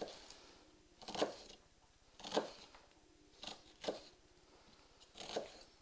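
Chef's knife slicing down through an onion onto a wooden chopping board: about five separate crisp cuts, roughly a second apart.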